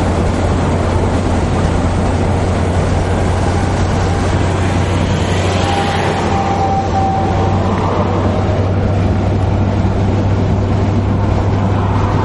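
Steady road and tyre noise with a low engine drone, heard inside a car moving at highway speed. A brief thin tone sounds about halfway through.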